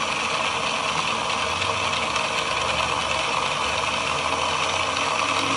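Small ATV electric winch running steadily under battery power, paying out its cable as the motorcycle lift's bed lowers.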